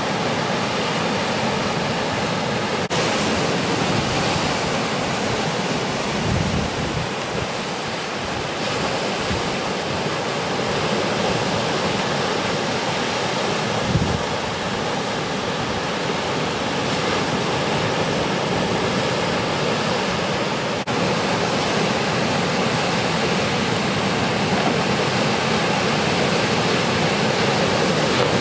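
Steady wash of ocean surf breaking at a river mouth, with a couple of brief low thumps partway through.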